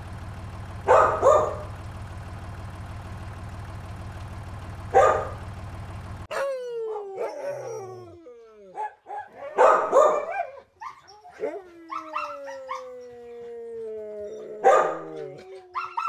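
A dog barking: a few sharp barks over a steady low tractor engine hum. About six seconds in the hum cuts off, and the dog whines and howls in long falling tones, with more barks around ten seconds and near the end.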